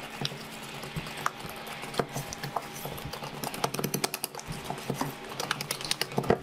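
Wire whisk beating thick batter in a stainless steel bowl: quick clicks and taps of the wires against the metal, getting faster and denser about halfway through.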